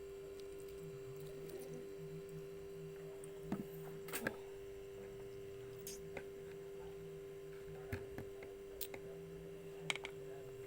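Faint steady hum under about half a dozen light clicks and taps from handling a spoon and a small dish. The sharpest tap comes about four seconds in.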